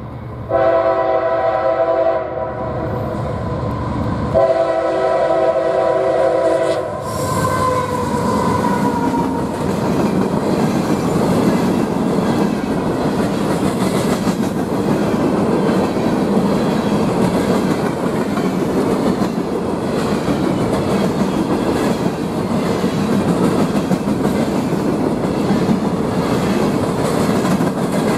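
A CSX GE diesel locomotive sounds two long horn blasts, the second starting about four seconds in, then passes close with a tone that drops in pitch. A long string of empty coke hopper cars follows, rolling by with a steady rumble and wheels clicking over the rail joints.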